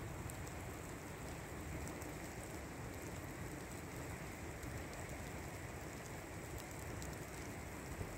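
Open fire burning in a stone fire pit: a steady flame rush with scattered light crackles.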